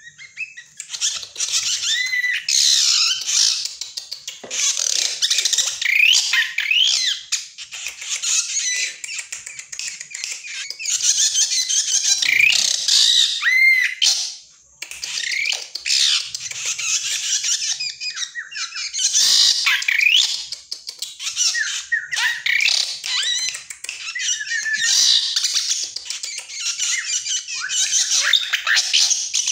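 A young drongo coming into its adult song, singing a rapid, nearly continuous medley of harsh chatters, squawks and whistled notes that rise and fall, with a short pause about halfway through.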